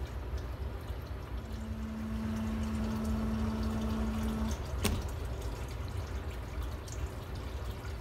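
Water rushing through a sump pump's discharge line, with a steady hum that stops about four and a half seconds in. Just after that comes a single sharp thunk as the A.Y. McDonald check valve's door slams shut and seats.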